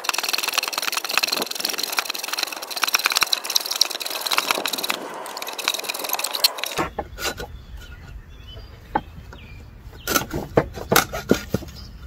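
Hand hacksaw cutting through a wooden post, a steady rasp of back-and-forth strokes. About seven seconds in the rasp stops abruptly, and a few scattered knocks and scrapes of the saw on the wood follow.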